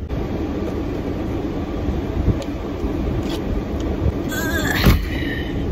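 Steady rush and rumble of a car's engine idling with the defroster fan blowing, heard inside the cabin. A sharp click comes about five seconds in.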